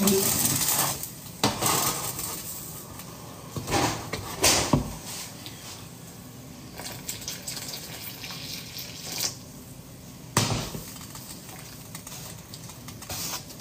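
Kitchen handling sounds: a metal pot and dishes being moved and set down, with scattered knocks and clinks, the loudest about four to five seconds in and again about ten seconds in. Water runs briefly at the very start.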